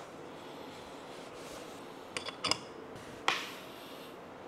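Hand coffee grinders being set down on a wooden tabletop: a few light clicks a little over two seconds in, then a single knock about a second later, over faint room tone.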